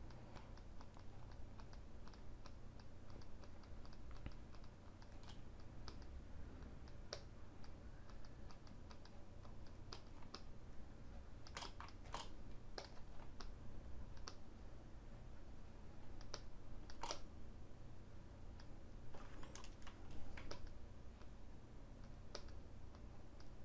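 Faint, irregular clicks of computer keys, a few louder ones near the middle and toward the end, over a low steady hum.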